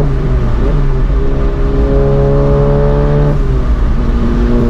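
The turbocharged 2.0-litre four-cylinder of a tuned VW Golf GTI Mk7, with an upgraded EQT turbo and MBRP cat-back exhaust, pulling hard under acceleration. Its note climbs steadily through one gear and breaks at gear changes near the start and about three seconds in, over a steady low road rumble.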